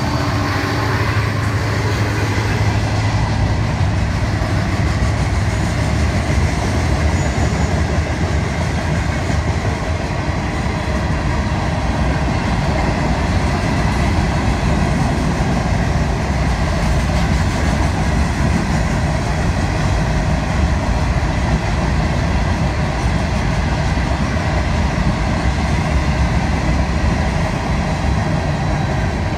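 Freight train rolling past. A diesel locomotive's engine hum is loud in the first couple of seconds, then comes the steady rolling noise of hopper and tank car wheels on the rails.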